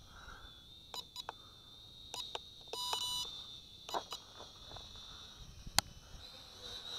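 A toy quadcopter transmitter gives a single electronic beep of about half a second, about three seconds in, as a button is pressed to switch the drone's headless mode. A few sharp clicks come before and after it.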